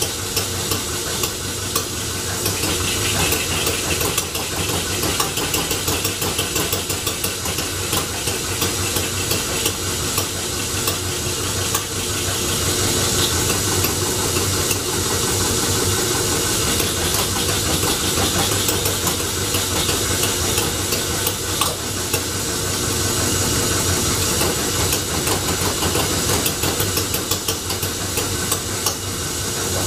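Home-built Scotch yoke engine being turned over by a motor through a belt on its first trial run: a steady, fast mechanical clatter with a hiss, a little louder and hissier about twelve seconds in. It is being motored while the mixture and ignition are tuned to make it fire, and it is not running on its own.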